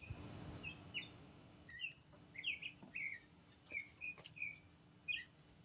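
A songbird singing: a run of short chirps, a dozen or so irregularly spaced notes, some rising and some falling.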